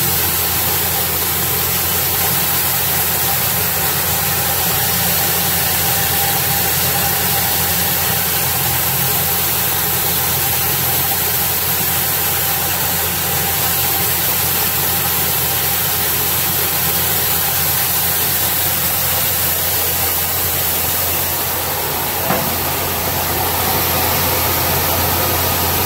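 Coin-operated rice polishing machine running steadily as it mills brown rice to white, a constant motor hum under a steady hiss while the polished rice pours out of the chute.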